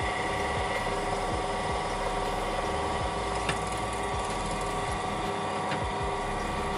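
Bench drill press motor running steadily with a 3 mm metal drill bit boring a hole through a small metal model part. A couple of faint ticks come about halfway through and again later.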